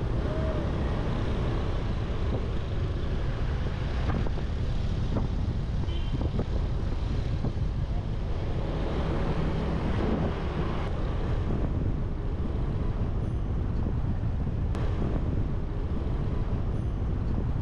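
Steady low wind rumble on an action camera's microphone from a moving motorbike, with the motorbike's engine and street traffic underneath.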